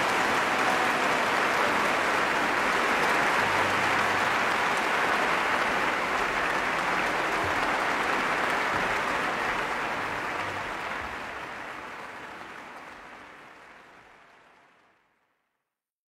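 Concert audience applauding: dense, steady clapping that fades out over the last few seconds.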